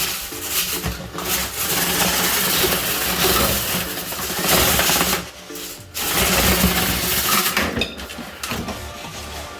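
Power drill running, spinning a rotary dryer-vent cleaning brush inside the vent duct, with a short stop about five seconds in.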